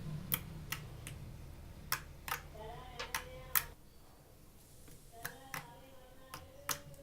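Slime being squished and worked by hand, giving about ten sharp clicks and pops at irregular intervals. A low hum runs underneath and stops a little past halfway.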